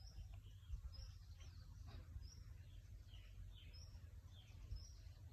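Faint bird chirping: short high chirps repeating about once or twice a second, with fainter falling notes between them, over a low background rumble.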